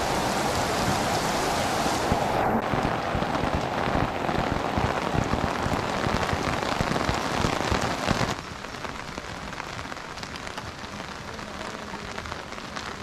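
Heavy rain pouring onto an asphalt road, a dense steady hiss of falling drops. About eight seconds in it becomes quieter.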